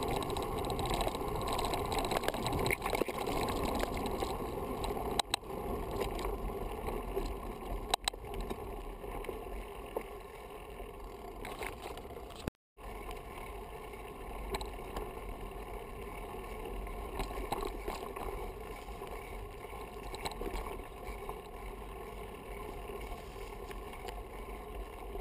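Wind rushing over the microphone of a camera riding along a dirt forest track, with tyres rolling over the trail. Two sharp clicks come about five and eight seconds in, and the sound cuts out for a moment about halfway.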